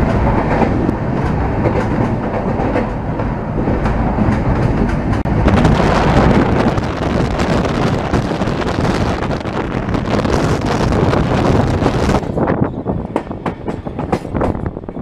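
Passenger train running along the line, heard from an open coach window: a steady rushing roar of wheels on rail with clatter through it. About twelve seconds in the rushing hiss drops away, leaving separate wheel clicks and knocks.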